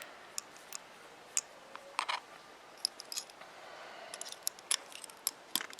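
Small metal engine parts and tools being handled on a workbench: scattered sharp clicks and clinks at irregular intervals.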